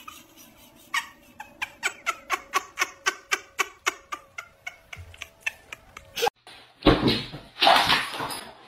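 A dog making a quick, even run of short squeaky yelps, about two to three a second. Near the end come a few loud, rough bursts of sound.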